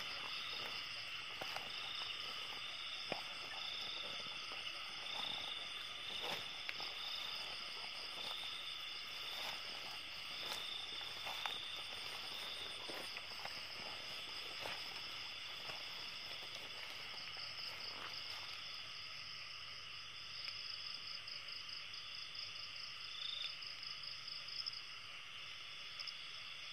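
Steady night chorus of insects and frogs: a pulsing high trill over fainter lower calls, with scattered soft taps and rustles through wet grass.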